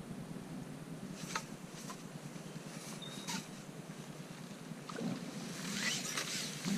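Scattered light clicks and ticks as a fishing pole and tackle are handled, then a brief scratchy splash near the end as a landing net goes into water among broken ice shards.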